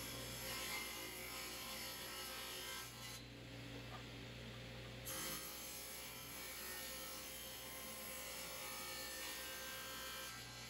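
Ridgid table saw running while a thin wooden board is ripped lengthwise, fed past the blade with a push block. The blade's steady whine carries through, and the cutting hiss eases for a couple of seconds in the middle before picking up again.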